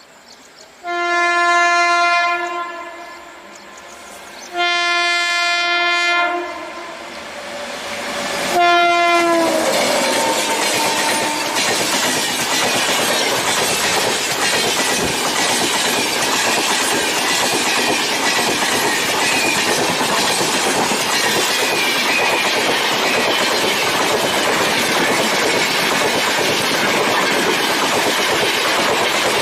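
Indian Railways WAP7 electric locomotive horn sounding two long blasts and a third short one whose pitch drops as the locomotive passes. After that comes the loud, steady rush and clickety-clack of the express coaches running past at speed over the rail joints.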